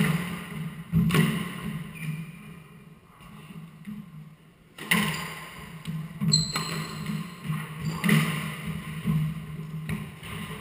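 Squash ball knocks echoing around the court: a handful of sharp racket, wall and floor strikes a second or more apart, over a steady low hum. A short high squeak sounds about six seconds in.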